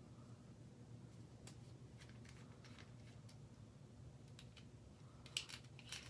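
Near silence with faint scattered clicks, then a short cluster of sharper clicks about five seconds in: a bicycle floor pump's head being handled and pushed onto a Presta valve.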